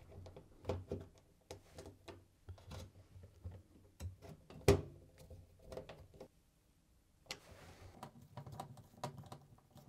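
Phillips screwdriver driving screws to fix a replacement door lock into a Samsung ecobubble washing machine's door opening: a run of small, irregular clicks and ticks, with one sharper knock a little under five seconds in.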